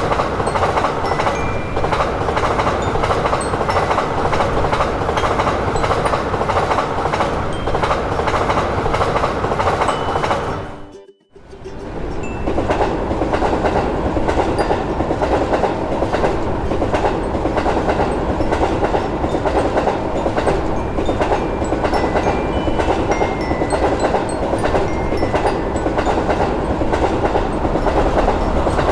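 Train running past on the rails, with a steady rolling noise and wheels clicking over the rail joints in an even rhythm. The sound cuts out for about a second a third of the way through, then the rolling and clicking carry on.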